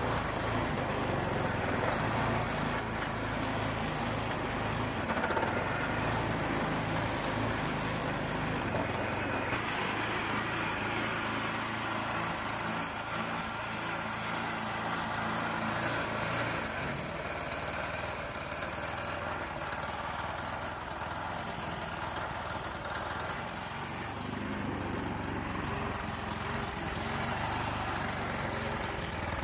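A 4 hp single-cylinder push-mower engine running steadily on a homemade ride-on mower.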